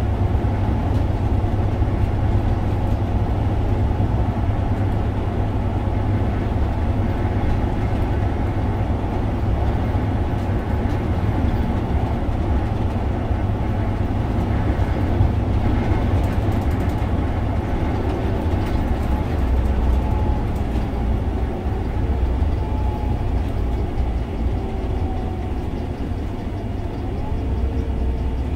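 Interior drone of a Scania OmniLink three-axle bus under way: its biodiesel engine and road noise give a steady low rumble, with a faint whine coming and going in the second half.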